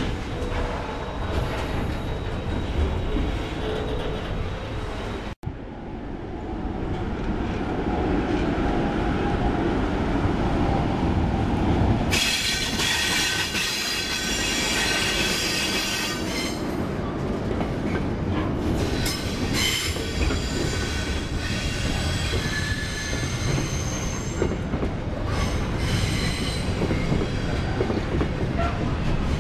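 Container freight trains passing close by: a steady rumble and clatter of the wagons, with a brief cut-out about five seconds in. From about halfway through, high-pitched wheel squeal from the locomotive and wagons comes and goes.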